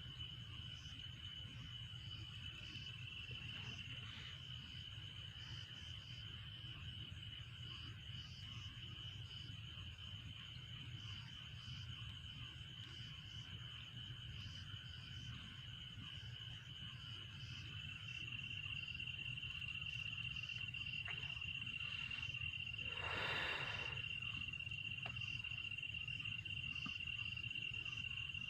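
Insects chirring steadily: a continuous high trill with a faster, evenly pulsing call above it. A brief rustle breaks in late on.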